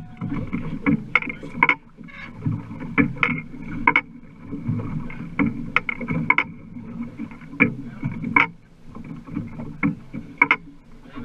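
A fishing boat under way: its engine runs steadily with a thin whine, and irregular sharp knocks and rattles of hull and gear come every second or so.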